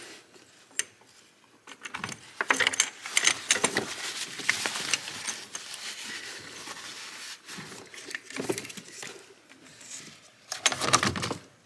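Hands working hoses, electrical connectors and the brake booster vacuum pump loose in a car's engine bay: irregular rattling, clicks and rustling of metal and plastic parts, with a sharp click about a second in.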